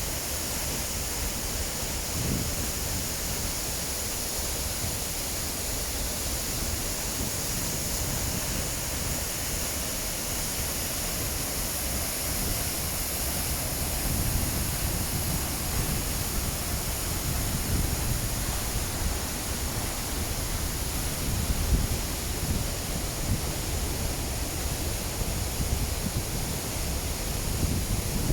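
Steady rushing roar of a high waterfall cascading down a rocky cliff, with an uneven low rumble beneath.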